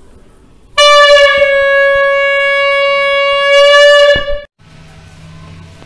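Pink plastic toy horn blown in one long, loud, steady note that starts about a second in, holds for about three and a half seconds, then cuts off suddenly.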